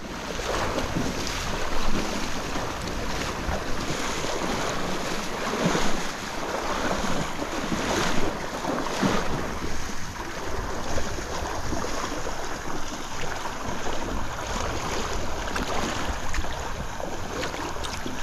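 Steady rushing noise of stream water with wind buffeting the camera microphone, broken by a few short splashes or knocks.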